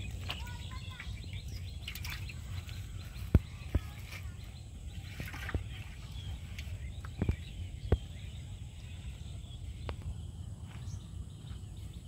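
Outdoor ambience: a steady low rumble with faint bird chirps. Four sharp clicks or knocks in two close pairs, about three and a half and seven and a half seconds in, stand out above it.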